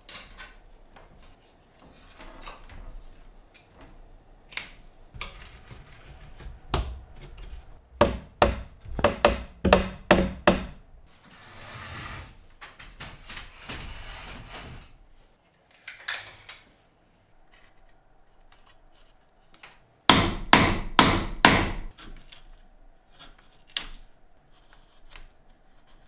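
Wood chisel driven by a mallet into a wooden kayak gunwale, cutting a pocket mortise: runs of sharp wooden knocks, a quick burst near the middle and another near the end, with a few seconds of scraping between them.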